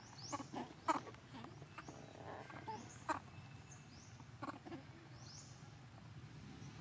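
Young long-tailed macaques giving short squeaks, several in quick succession in the first second and a few more spread through the rest.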